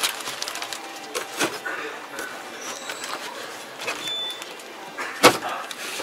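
Plastic knocks and clicks from a John Deere tractor cab's armrest console being handled, with one sharp clack about five seconds in as the console lid is unlatched. Voices murmur in the background.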